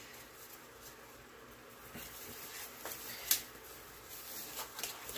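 Disposable nitrile gloves being pulled on: faint rustling and a few light clicks, with one sharp click about three seconds in.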